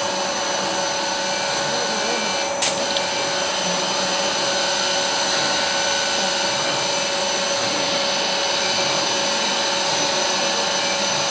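Double-spindle CNC router running: a steady whine of several held tones over an even rushing noise, with one sharp click about two and a half seconds in.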